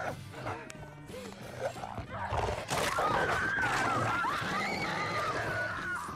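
A woman screaming in a long, wavering, high-pitched wail that starts about two seconds in and becomes the loudest sound, over background film music.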